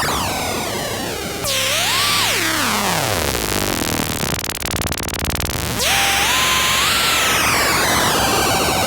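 Korg ARP 2600 FS analog modular synthesizer playing a noisy sound-effect patch over a hiss of noise. About a second and a half in, a tone swoops and falls steeply to a low, rough buzz. Around six seconds in, the pitch sweeps back up and then slowly sinks.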